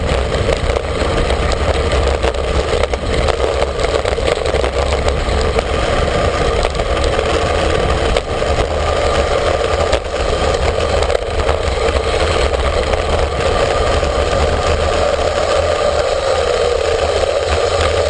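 Loud, steady wind rush buffeting the microphone of a camera carried on a fast downhill road-bike ride, with a deep rumble and a constant hiss of road noise.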